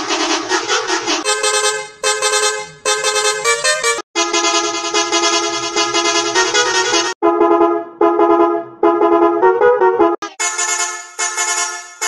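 Multi-tone musical bus horn playing its short stepping tune over and over, edited into several differently processed versions one after another, each with a different tone colour and brief breaks between them.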